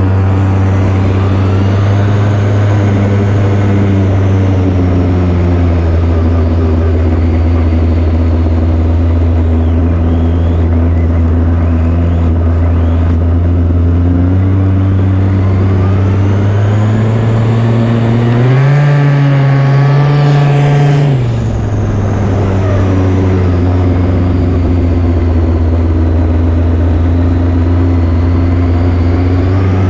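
Small two-stroke weedeater (string trimmer) engine powering an RC truck, running steadily at a constant speed. About two-thirds of the way through it revs up, holds the higher pitch for a few seconds, then drops back suddenly.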